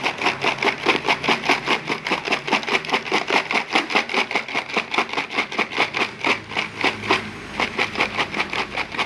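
Crispy fried wonton chips rattling and crunching against one another and their container as they are tossed with seasoning powder to coat them evenly, in a steady rhythm of about six strokes a second. The rhythm breaks briefly about seven seconds in.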